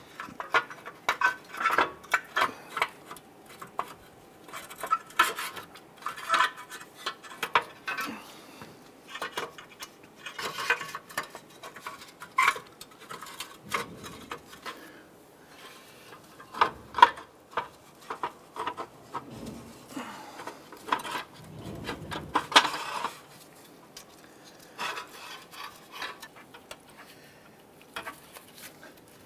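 Thin metal axle heat shield clinking, rattling and scraping against surrounding metal as it is worked free by hand, in irregular bursts.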